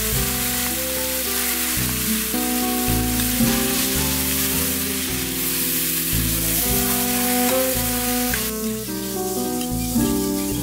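Beef, onion and mountain jelly vegetable sizzling as they are stir-fried in a hot pan with oil and oyster sauce, under background music; the sizzling cuts off near the end.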